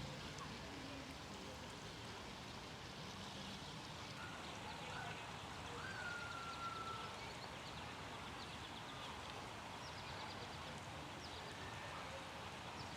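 Faint outdoor background noise: a steady hiss with scattered faint high chirps and one short whistle about six seconds in.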